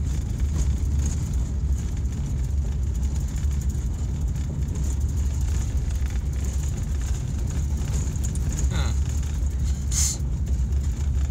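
Steady low rumble of a car driving slowly on a gravel road, heard from inside the cabin, with a brief sharp click about ten seconds in.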